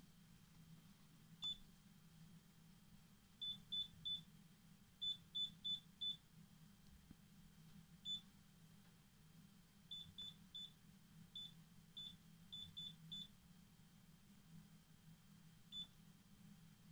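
Candy Rapidó washing machine control panel beeping as its buttons are pressed to select programs and options: about eighteen short high beeps, some single and some in quick runs of two to four, each one acknowledging a button press.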